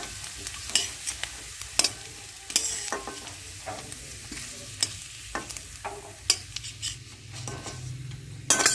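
Metal spatula scraping and knocking against a metal kadai in short, irregular strokes as fried coconut pieces are lifted out. Hot mustard oil sizzles faintly underneath.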